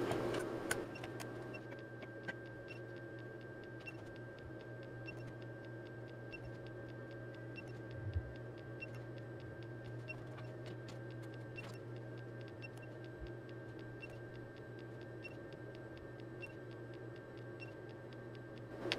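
Bench test equipment giving a low, steady electrical hum and a faint high whine, with a faint tick about twice a second and scattered soft clicks. A soft thump comes about eight seconds in.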